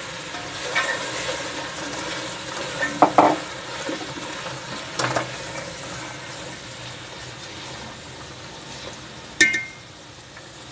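Flat wooden spatula stirring peas and potatoes in a metal pot of sizzling masala: steady sizzle with a few scrapes and knocks against the pot, the sharpest a ringing knock near the end.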